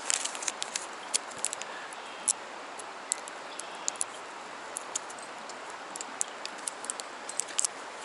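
Steady rushing of a trout stream, with many light, sharp clicks and ticks scattered irregularly over it.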